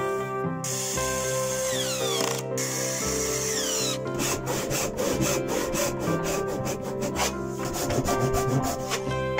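A cordless drill runs into an oak bench frame. From about halfway through, a brass-backed hand saw cuts oak in rapid, regular strokes, over acoustic background music.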